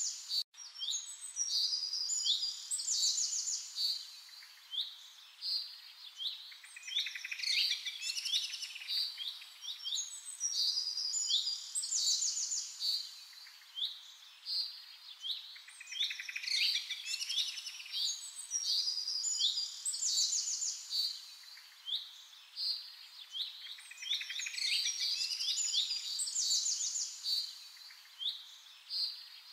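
Several small songbirds chirping and trilling together, their calls overlapping without pause over a faint steady hiss. The same stretch of birdsong comes round again about every nine seconds, as a looped recording, and the sound drops out for an instant about half a second in.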